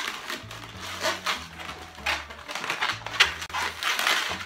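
Inflated 360 latex balloon squeaking and rubbing in the hands as it is twisted into pinch twists, in short irregular strokes a few times a second, over background music with a steady bass line.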